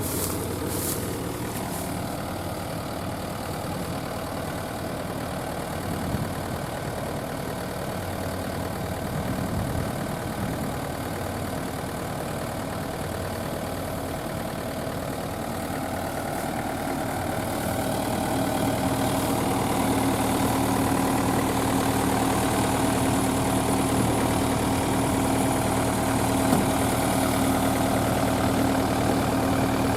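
Rice combine harvester's diesel engine running steadily, growing louder a little past halfway and holding there.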